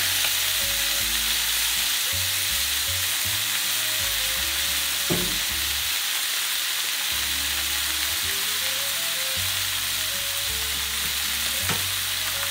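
Chicken thighs frying in a very hot stainless-steel paella pan, a steady dense sizzle as the meat sears. Two light clicks come about five seconds in and near the end, and soft background music plays underneath.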